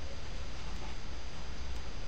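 Quiet room tone: a steady low hum under faint hiss, with no distinct sound standing out.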